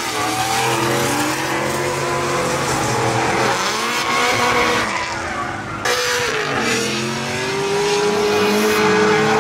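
Drift car engines revving hard through slides, their pitch rising and falling, over the squeal of spinning tyres. The sound changes abruptly about six seconds in.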